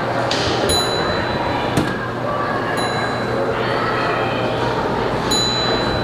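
Antique arcade ambience: three high electronic dings from coin-op games, about two seconds apart, over a din of machines with a steady low hum and background chatter.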